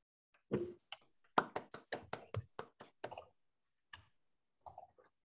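Brief scattered hand claps from a few listeners, heard through video-call audio: quick claps at about six a second for a couple of seconds, then a few isolated taps near the end.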